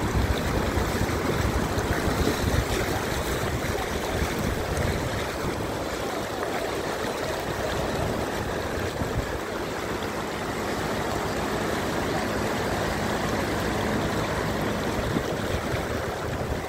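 Floodwater rushing steadily, a continuous even rush of fast-flowing river water.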